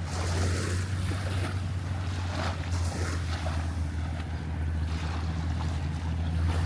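Boat engine running steadily with a low hum, with wind on the microphone and lapping water in the background.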